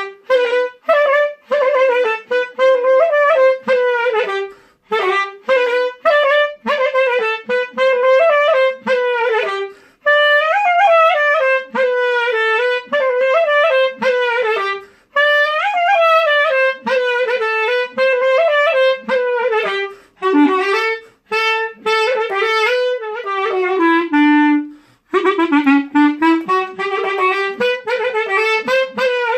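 Silver SCL-05 ebony G clarinet played in fast, ornamented phrases of quick notes, with a short breath pause about every five seconds and a dip to lower notes near the end. This is a play-test after its tuning, intonation and key regulation.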